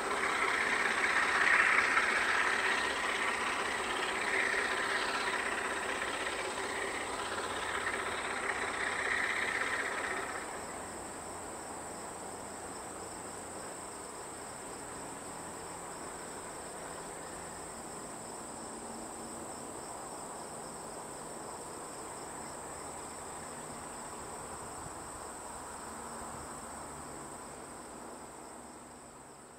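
Alco RS-11 diesel locomotive hauling a passenger train, louder for the first ten seconds and then dropping to a distant low engine hum, under a steady high-pitched insect buzz.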